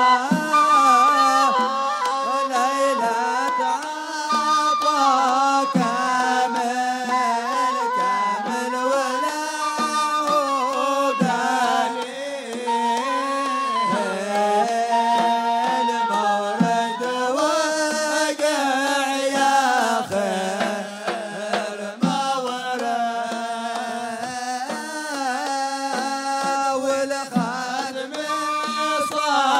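Yemeni Hadhrami zarbadi music: men singing a sung poem together over a wooden flute melody, with double-headed drums beating.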